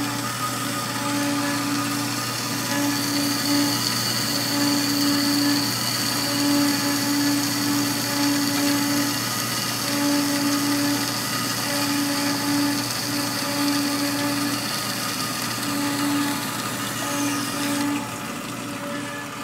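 Horizontal metal-cutting bandsaw sawing through aluminum bar stock under coolant. A steady motor hum runs under a low throb that pulses about every second and a half, with a high whine from the cut through most of it. Near the end the whine stops and the whole sound drops as the cut finishes.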